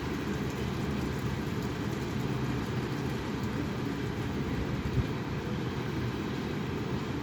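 Strong wind buffeting the microphone: a steady low rumble, with a brief thump about five seconds in.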